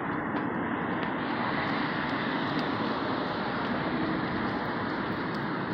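City street traffic: cars driving through an intersection, a steady wash of engine and tyre noise that fills out a little about a second in.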